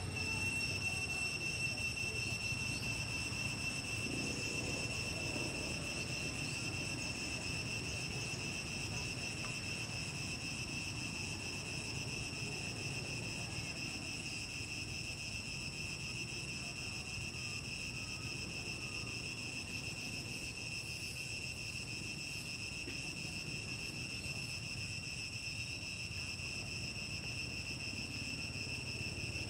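Insects droning steadily on one high pitch, unchanging throughout, over a low background rumble.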